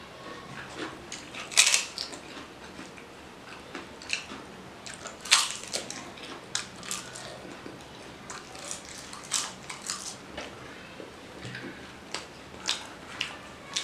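Close-up eating sounds: crisp fried papad being bitten and crunched, with two loud crunches about a second and a half and five seconds in, then smaller crunching and chewing clicks throughout.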